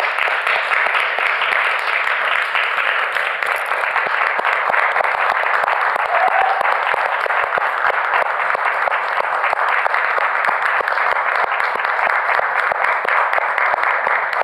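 Audience applauding steadily, a dense sustained clapping from a full house.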